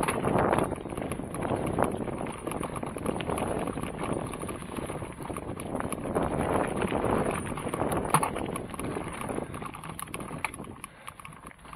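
Continuous crunching and rustling of fast movement over dry leaves on a dirt trail, full of small clicks and knocks, with wind buffeting the microphone; it gets quieter near the end.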